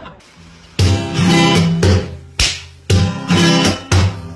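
Background music: an acoustic guitar strumming chords in a lively rhythm, coming in strongly about a second in.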